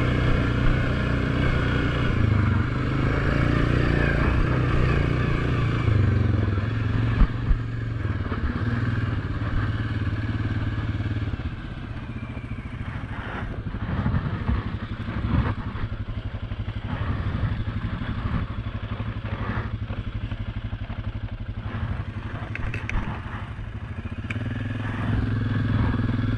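ATV engine running under steady throttle for about the first ten seconds. It then drops to a slow, quieter run with scattered knocks and rattles as the machine rolls over rough dirt, and picks up again near the end.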